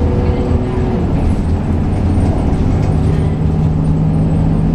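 Cabin noise inside a moving 2004 Eldorado EZ-Rider II bus: its Cummins ISB inline-six diesel runs with a steady low drone under continuous road and tyre rumble.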